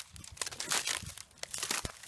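Boots crunching through dry, dead stalks that look like bamboo: two crackling steps, each with sharp snaps as the brittle stems break underfoot.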